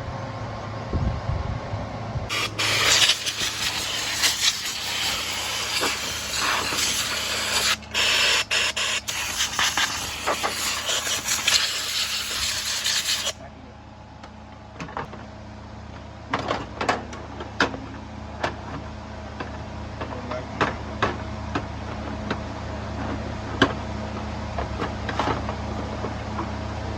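A loud, steady spraying hiss of pressurised air or liquid lasting about eleven seconds, briefly broken a few times near its middle. It cuts off suddenly, leaving scattered light clicks and taps of tools over a steady low hum.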